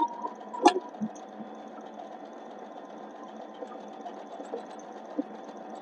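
Brother GS3700P electric sewing machine running steadily, its motor and needle mechanism whirring evenly as it stitches. There are a couple of sharp clicks in the first second.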